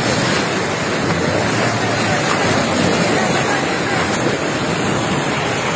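Steady rush of white water churning through a river rapid.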